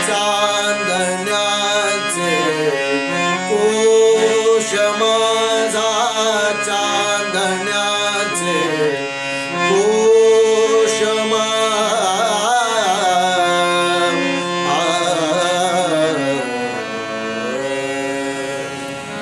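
A man singing a traditional Indian melody in long held notes that glide and waver, over a steady instrumental drone.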